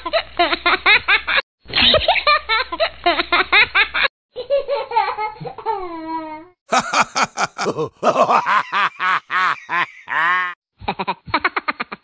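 High-pitched laughter in rapid repeated bursts, cut into separate stretches that stop and start abruptly; the laugh in the middle sounds fuller and brighter than the others.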